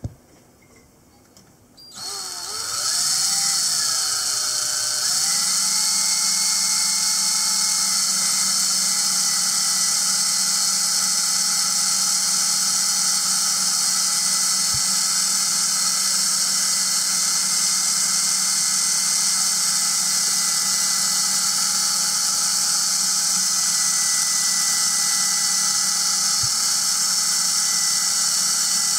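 Cordless drill spinning a stirring rod inside a glass carboy of mead, mixing in back-sweetening honey. It starts about two seconds in, rising in pitch as it comes up to speed over the next few seconds, then runs at a steady speed.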